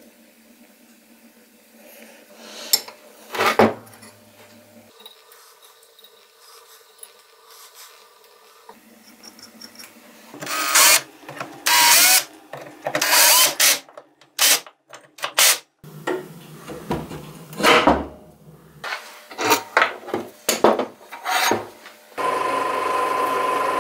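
Short bursts of workshop tool work, cut one after another, with rubbing and power-tool sounds; about two seconds before the end a steady machine sound with a held tone begins.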